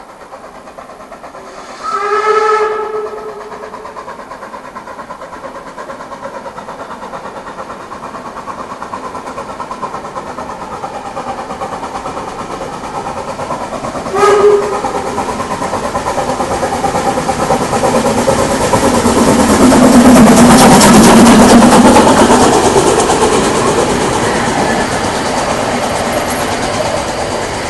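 HSB narrow-gauge steam locomotive working hard at full throttle up the Brocken line, approaching and passing. Its steam whistle sounds a blast of about a second about two seconds in and a short blast about fourteen seconds in. The rapid exhaust beat swells to its loudest around twenty seconds in as the engine passes, then the coaches roll by.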